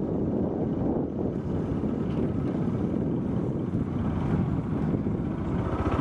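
Motorbike engine running steadily while riding, with wind buffeting the microphone.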